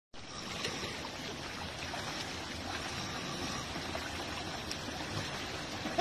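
Water of a small rocky stream rushing, a steady even hiss.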